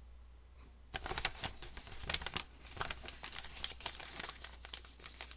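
Sheet of paper being crinkled and rustled in the hands: a quiet moment, then from about a second in a dense run of sharp crackles that thins out near the end.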